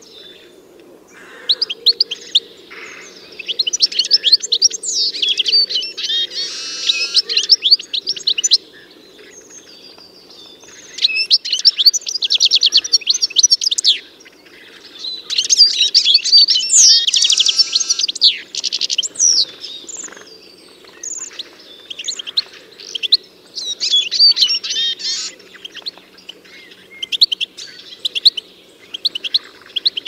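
Small songbirds chirping and twittering: rapid high notes in busy phrases of a few seconds each, separated by short pauses, over a faint low hum.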